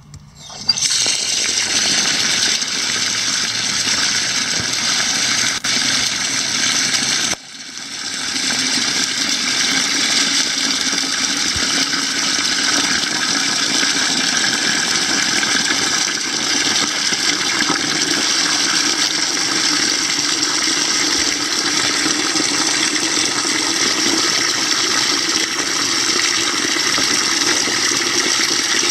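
A steady stream of water pouring into a bucket of whole wheat grain, filling it to soak the grain. The stream breaks off briefly about seven seconds in, then runs on.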